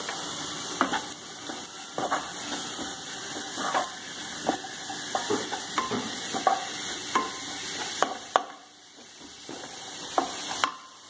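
Wooden spatula stirring and scraping radish stuffing in a nonstick kadhai, with scrapes and knocks about once a second over a steady low sizzle of the stuffing frying in oil. The stirring pauses for a moment near the end.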